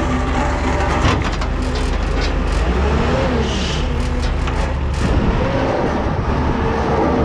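BOMAG BW 213 PD roller-compactor's diesel engine running as the machine is driven along a trailer deck, its pitch rising and falling twice. Several clanks and knocks come between about one and five seconds in.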